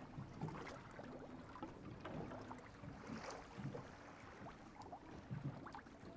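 Faint water lapping and slapping against the hull of a boat holding position on choppy sea, with a light hiss of wind; irregular soft knocks and ticks.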